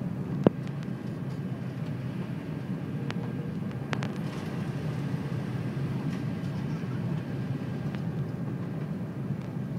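Steady airliner cabin noise, the engine and airflow rumble heard from inside the cabin. A sharp click comes about half a second in, and fainter clicks follow around three and four seconds in.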